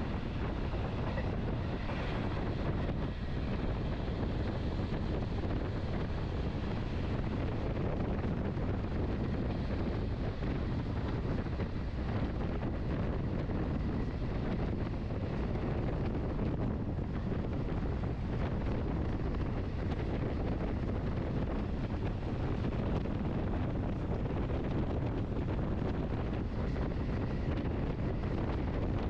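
Steady running noise of the Lucerne–Engelberg Express train heard from on board: a low rumble from the wheels and track with wind rush over the microphone.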